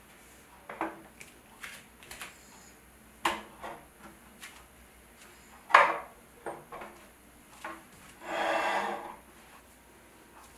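A vintage wooden coffee table being handled and set in place. There are scattered light wooden knocks and clunks, a sharper knock about six seconds in, and a rubbing scrape lasting about a second near the end, as the table is slid on the rug.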